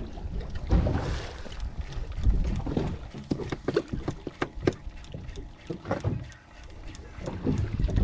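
Water sloshing and slapping against the hull of a small fibreglass boat, with low uneven rumbles. A run of sharp clicks comes through the middle seconds.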